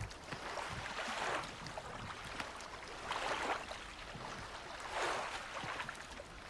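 Water splashing and washing around a wooden fishing boat, swelling about every two seconds.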